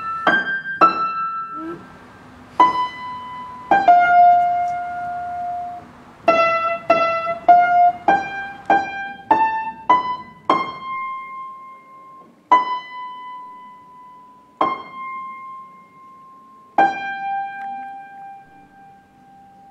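Solo piano playing a slow, high melody one note at a time, each note struck and left to ring and fade. The notes come further apart toward the end, and the last one is held.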